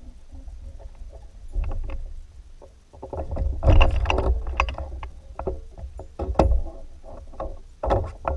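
Kayak on the water: irregular splashes and knocks against the hull over a constant low wind rumble on the microphone, the loudest bursts about halfway through and near the end.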